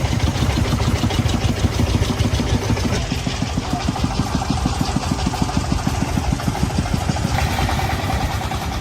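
Engine of heavy logging machinery running steadily with an even throbbing beat of about seven pulses a second.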